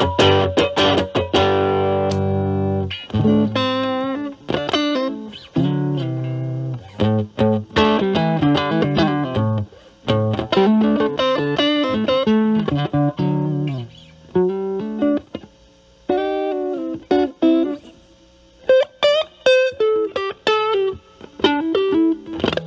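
Stratocaster electric guitar played through an Ibanez Super Metal mini distortion pedal with its drive set high, into the clean channel of a Marshall Valvestate amp. It opens with a held chord, then plays phrases of chords and single notes with short pauses between them.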